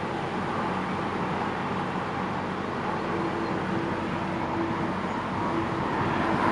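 Engine running steadily at constant speed, with a low hum that shifts to a higher hum about three seconds in.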